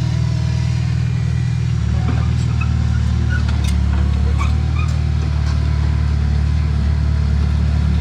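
Heavy diesel engine of earthmoving machinery running steadily at an even speed, with a few faint high clicks over it.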